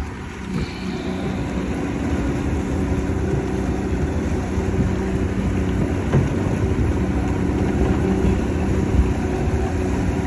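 A small fishing boat's outboard motor running steadily under way, with the rush of water along the hull. The motor picks up a little over the first couple of seconds, then holds an even drone.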